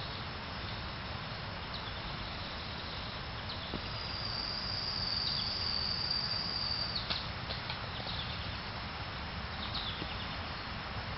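Insect buzzing in one long, steady, high note that starts about four seconds in and stops about three seconds later, over a constant background hiss. A few short high chirps come near the end.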